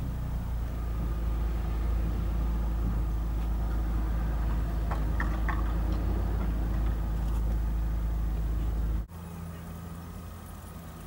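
Car engine idling with a steady low rumble, heard from inside the car. About nine seconds in the rumble drops off suddenly, leaving a quieter hum.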